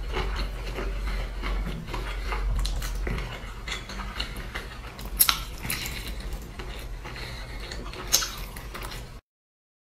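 Close-up eating sounds: a spoon clinking and scraping in a glass bowl of sauce, with biting and chewing, and two sharp clicks about five and eight seconds in. The sound cuts off suddenly just after nine seconds.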